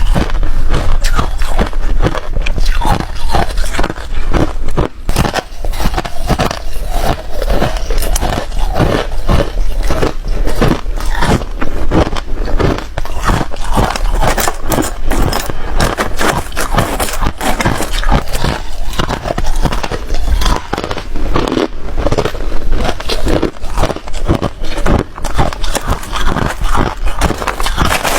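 Hard ice being bitten and chewed close to the microphone: a continuous run of loud, sharp crunches and cracks, several a second.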